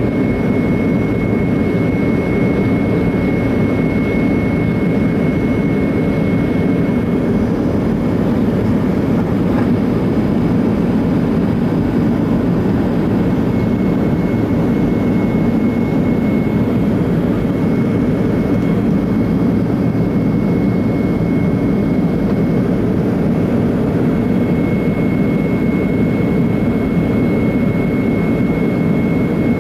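Jet airliner cabin noise while climbing after takeoff: a steady, even roar of the engines and airflow heard from inside the cabin, with a thin steady whine above it.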